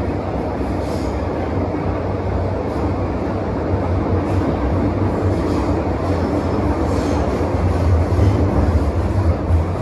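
Hong Kong MTR Metro-Cammell EMU (M-Train) running between stations, heard from inside the car: a steady rumble of wheels on rail and traction equipment, getting a little louder near the end.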